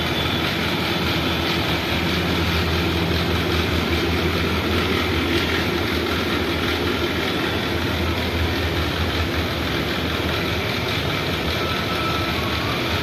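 Steady mechanical hum with an even rush of noise, unchanged in level throughout.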